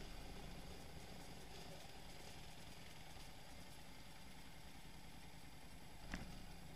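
Quad bike engines idling, a quiet steady low hum. A single sharp knock about six seconds in.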